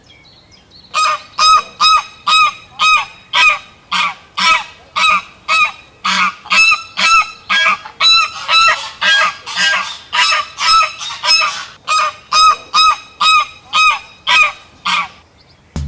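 Goose honking, a steady run of short, nasal honks at about two a second.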